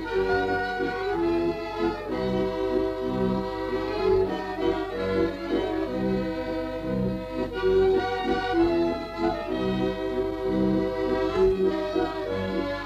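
Folk tune played on accordion, sustained melody notes over a steady, regular beat in the bass.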